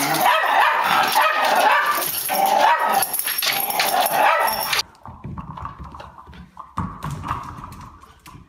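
Small dogs barking and yipping excitedly, nonstop and loud. About five seconds in, the barking cuts off abruptly, leaving a much fainter thin whine and a few light taps.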